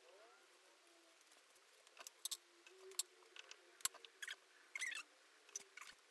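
Quiet, scattered light crinkles and taps of a thin spring-roll (lumpia) wrapper being handled and filling being spooned onto it on a wooden cutting board, mostly in the second half.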